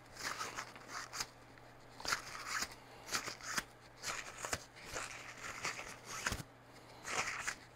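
Paper towel rubbing and crinkling against a plastic gear housing as it is wiped clean by hand: a run of short, irregular rustling strokes with brief pauses between them.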